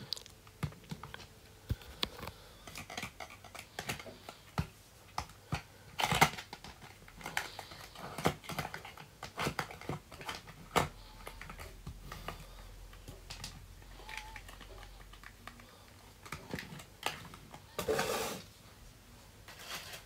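Small cardboard cosmetic boxes handled and set down on a hard floor: irregular taps and clicks, with a louder rustling scrape about six seconds in and another near the end.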